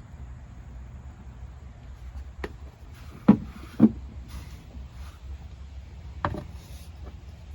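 A few sharp knocks and clunks from handling things during the oil top-up, the two loudest close together about halfway through, over a steady low hum.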